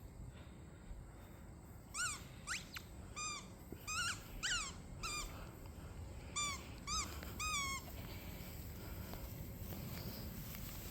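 Dog whining in a series of short, high-pitched whimpers, about a dozen of them, starting about two seconds in and dying away after about eight seconds.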